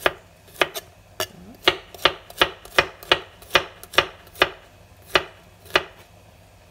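Chef's knife chopping garlic cloves on a plastic cutting board: about fifteen sharp knocks of the blade on the board, roughly two a second at an uneven pace, stopping about six seconds in.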